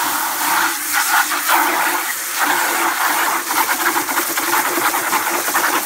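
Garden hose pistol-grip spray nozzle jetting water into a plastic bucket to rinse it out: a steady rushing spray and splash against the plastic that cuts off suddenly at the end as the trigger is released.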